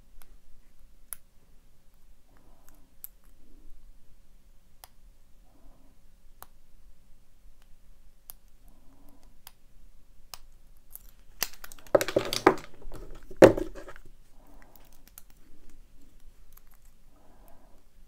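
Lock pick working the pins of a Master Lock Pro Series 6835 padlock held under a tension wrench: faint, scattered small metal clicks, with a louder stretch of metallic rattling and a sharp knock about two-thirds of the way through.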